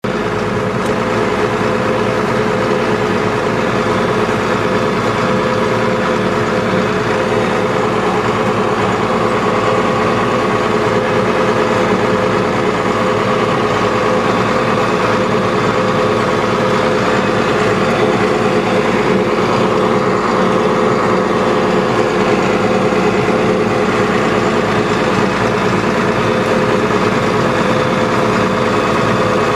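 John Deere STS combine harvester running steadily as it harvests corn: a constant engine and machinery drone with a steady hum that holds the same pitch throughout.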